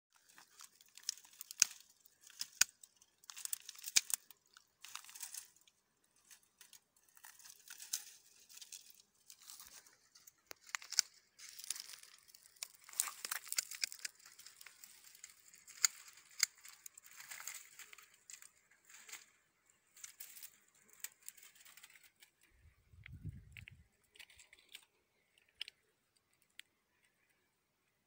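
Dry twigs and dead branches crackling, rustling and snapping as a gloved hand pushes through a brush pile, with sharp snaps now and then. The crackling thins out over the last few seconds, with one low thump near the end.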